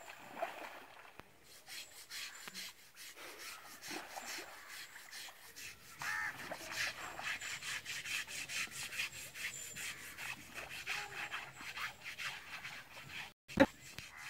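An elephant's hide being scrubbed by hand as it lies in shallow river water: a steady run of short, rough rubbing strokes. A single sharp knock near the end.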